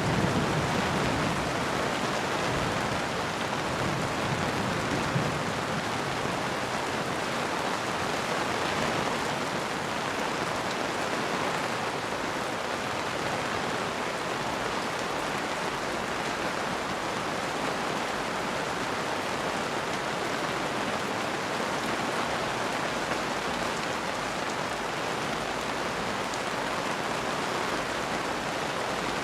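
Steady rain falling and pattering on surfaces, an even, constant hiss. A low rumble sits under it in the first few seconds, then fades.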